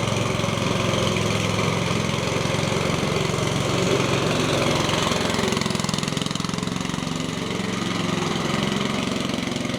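Petrol engine of a vintage Atco Royal ride-on lawn mower running steadily as the mower drives along, with an even, fast firing beat.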